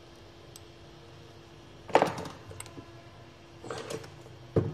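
Hard clatter of small tools or objects handled on a repair workbench: a sharp, briefly ringing clack about two seconds in, a softer one later and a short knock near the end, over a faint steady electrical hum.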